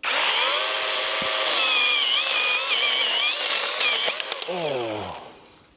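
Small cordless 21 V one-handed battery chainsaw starting up suddenly and cutting through a tree branch for about five seconds, its motor whine wavering under load. It winds down and stops near the end.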